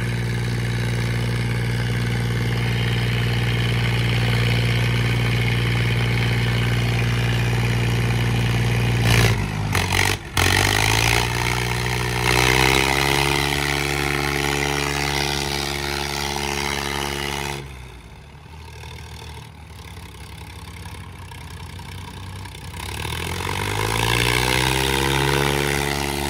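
Tractor diesel engines labouring under full load in a tug-of-war pull, steady for several seconds, then a brief clatter about nine seconds in. The revs climb again, the sound drops sharply a little past halfway, and near the end the engine revs up once more.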